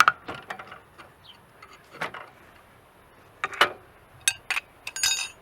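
Metal tools and engine parts clinking and knocking in a string of separate sharp strikes with a short ring, ending in a quick rattle of several clinks: the extractor and flywheel being handled as the flywheel comes off.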